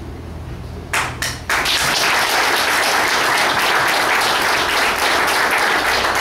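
Audience applauding: a few separate claps about a second in, then steady applause.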